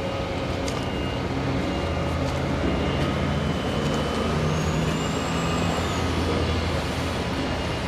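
Heavy truck engine running steadily, a low hum that shifts slightly in pitch.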